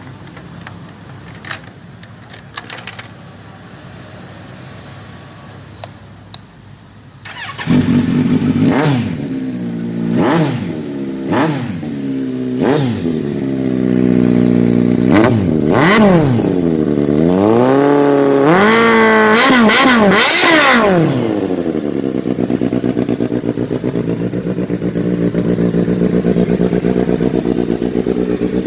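Kawasaki Z900 inline-four motorcycle engine: after a few clicks over a low hum, it starts suddenly about seven seconds in. It is revved in several quick blips, then a longer rev climbs high. It settles back to a steady idle for the last several seconds.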